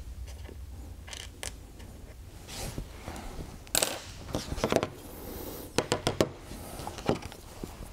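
Small metal airgun parts and hand tools being handled and set down on a workbench: scattered light clicks and clinks, with a few sharper knocks in the second half.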